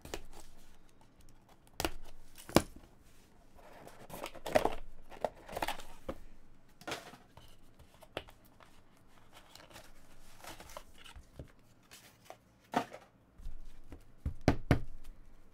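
A small cardboard trading-card box being slit open with a box cutter and its lid pulled off, then cards lifted out of the tray inside: irregular cutting, tearing and crinkling noises with sharp cardboard clicks and taps, the sharpest about two and a half seconds in.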